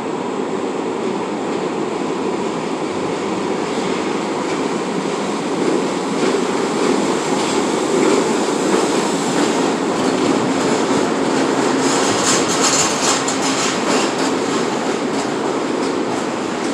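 R62A subway train pulling into an underground station: a steady rumble that grows louder as it approaches. From about ten seconds in, clicks of the wheels over the rail joints and a high screech join it as the cars run alongside the platform.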